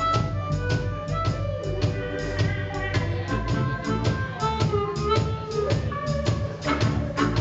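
Live electric blues band playing: drums and bass keep a steady beat under electric guitar, with a blues harmonica blown into a hand-held microphone.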